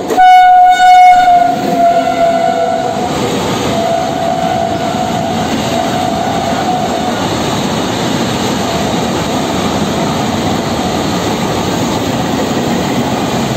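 WAG-9 electric locomotive sounding its horn as it passes at speed, the horn loudest in the first second or two and fading out about halfway through. Behind it, the steady noise of loaded container wagons rolling past.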